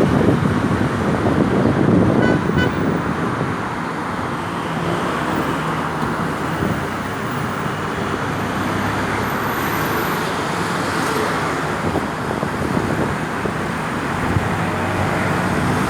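Road traffic noise: vehicles passing on a busy road in a steady rush, a little louder in the first couple of seconds.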